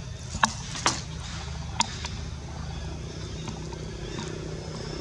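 Steady low rumble of a running motor, with three short sharp clicks in the first two seconds.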